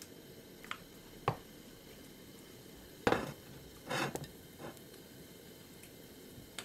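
A cooking utensil knocking against a frying pan: two short clacks in the first second and a half, then louder knocks and scrapes about three and four seconds in, over a faint steady hiss.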